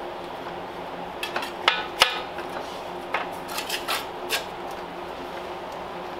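Sheet-steel panel knocking and clanking against a steel pipe anvil as it is bent over it by hand. Two loud ringing metal clanks come close together about a second and a half in, followed by a few lighter clinks.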